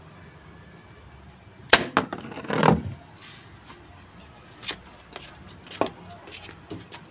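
A homemade slingshot arrow striking a plastic bottle of liquid: a sharp smack about two seconds in as the arrow hits and pierces the bottle and knocks it over, a short noisy clatter just after, then several light knocks as it settles.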